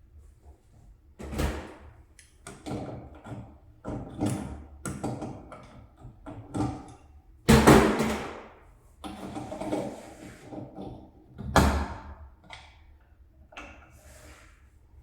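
A run of irregular knocks, clunks and clatters, about a dozen, from objects being handled and set down during faucet repair work. The loudest comes about halfway through, with a second strong knock a few seconds later.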